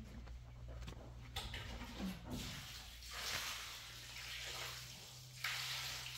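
Trowel scooping and scraping wet cement mix in a metal wheelbarrow: a few long scrapes starting about two seconds in, over a steady low hum.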